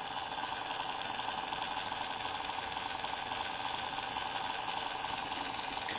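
Faulty cooling fan in an aluminium MacBook Pro running with a steady whirring noise, a lot of noise for a laptop: the fan is failing and due for replacement, a common problem on these machines.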